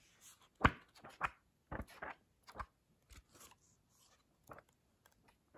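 Pages of a thick textbook being flipped by hand: a run of short papery flicks and rustles at uneven intervals, the sharpest about half a second in.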